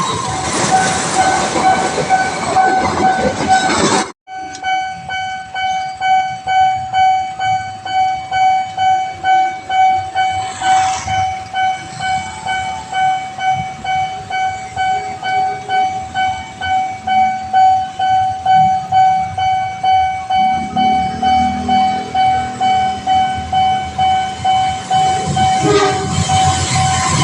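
Railway level-crossing warning alarm sounding: an electronic tone of one fixed pitch that pulses a little faster than once a second. For the first four seconds it rings under the loud rushing noise of a passing train. After a sudden break it continues on its own.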